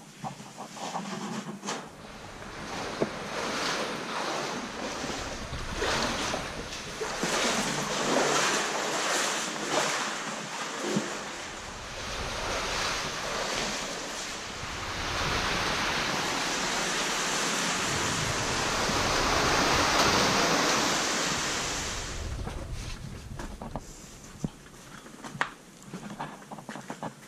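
Rushing water and splashing as a caver wades through a shallow cave stream, with irregular knocks and sloshes at first and then a steady, louder rush of water that dies away near the end.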